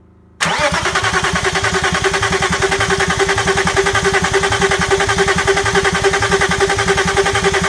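BMW S52 inline-six being cranked over by its starter motor without firing, turned over to prime the oil after sitting a long time. It starts about half a second in, with a steady starter whine over an even, rapid pulsing of the compression strokes.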